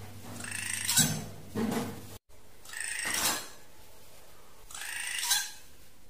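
Drongo calls from a bird-luring recording: harsh, raspy calls about every two seconds, each swelling in loudness to a sharp peak. The sound cuts out completely for a split second just after two seconds in.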